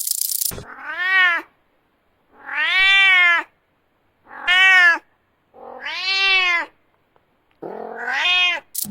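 Domestic cat meowing five times, each meow rising and then falling in pitch, with short silent gaps between.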